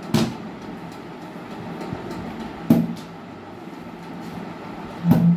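Plastic soft-drink bottle flipped and landing on a table, three knocks about two and a half seconds apart, over a steady low hum.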